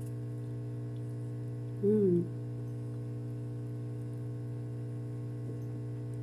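Steady electrical mains hum, with a short hummed "mm" in a woman's voice about two seconds in, rising then falling in pitch.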